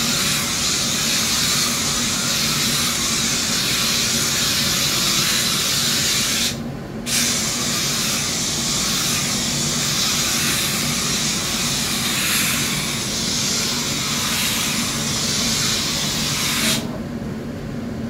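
Kärcher steam cleaner jetting steam with a steady, loud hiss as it dissolves baked-on kitchen grease. The steam stops briefly about six and a half seconds in, then resumes and cuts off near the end.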